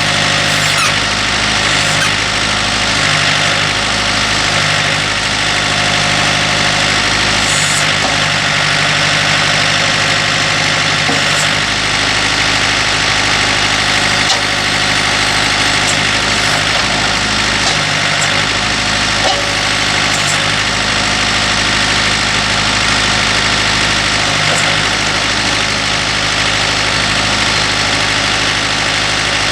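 Tractor engine running steadily under the John Deere 8A backhoe attachment. Its deep low tone drops in and out several times, mostly in the first dozen seconds.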